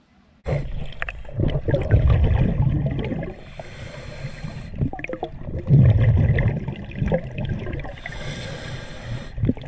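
Underwater recording of scuba breathing: exhaust bubbles from a regulator rumble and gurgle, starting about half a second in, with two hissing breaths through the regulator, one about three and a half seconds in and one about eight seconds in.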